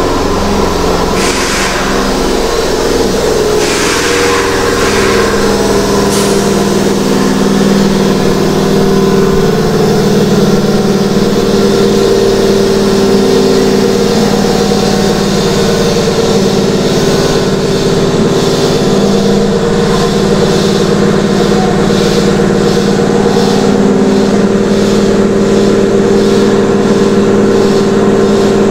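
Keihan electric train at an underground platform, its equipment running with a steady mechanical hum that echoes in the station. There are a few hisses in the first several seconds, and a regular beat joins in about halfway through.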